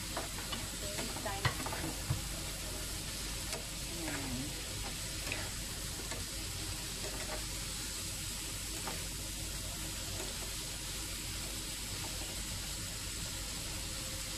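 Chicken, cauliflower and baby corn sizzling steadily in oil in a nonstick frying pan while a wooden spatula stirs and turns them. A few sharp knocks of the spatula against the pan come in the first couple of seconds.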